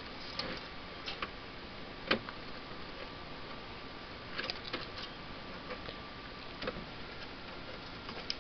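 Irregular light clicks and knocks from hands unplugging cable connectors and handling the plastic parts inside an iMac G3, with the sharpest click about two seconds in and a quick run of clicks around the middle.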